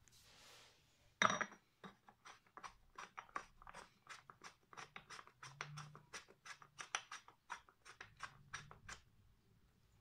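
Chrome hose end being pushed and worked into the metal front inlet of a Gordon Major cylinder vacuum cleaner: a sharp metal clack about a second in, then a quick, uneven run of scraping clicks, metal on metal, stopping about a second before the end.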